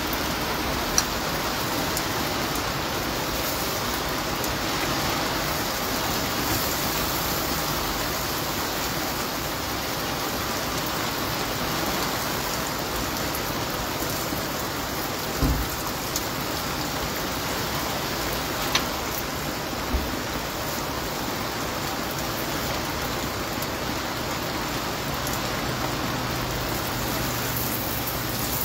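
Steady hiss of heavy rain blended with a lumpia frying in oil on a flat steel griddle, with a few sharp metal clicks from tongs against the griddle. A low steady hum comes in near the end.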